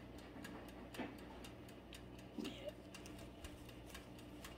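Mechanical dial timer of a Hamilton Beach countertop toaster oven ticking steadily and faintly, several ticks a second, over a low steady hum from the running oven. The timer is nearly run out.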